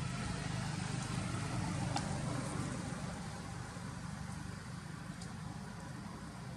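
Steady low engine hum of a motor vehicle running nearby, easing off slightly partway through, with a single sharp click about two seconds in.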